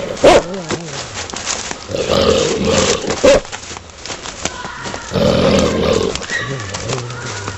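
A large animal's roar, the monster hound of the film, in about three loud bursts: a short one near the start, then longer ones about two and five seconds in.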